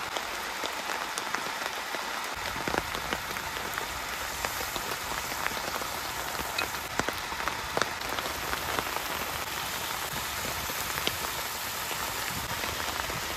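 Steady crackling patter with scattered sharp pops, heaviest in the upper range: bacon sizzling in a pan on a propane camp stove, mixed with rain falling on the camper's shelter. A duller low rumble joins a little over two seconds in.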